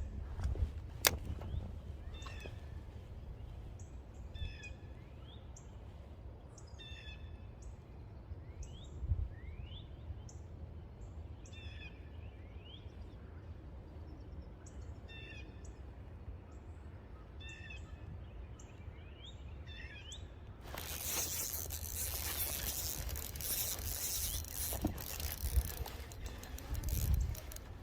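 Small birds chirping in repeated short high calls, some rising, over a low rumble. About twenty seconds in, a loud steady rushing hiss takes over.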